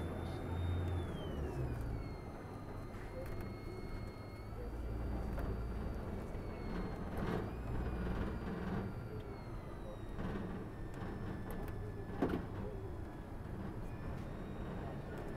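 Tour bus driving in city traffic: a steady low engine rumble with a thin high whine that slides down in pitch near the start, and a sharp knock about twelve seconds in.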